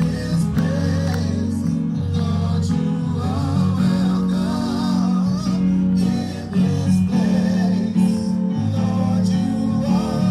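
Gospel music with singing over guitar.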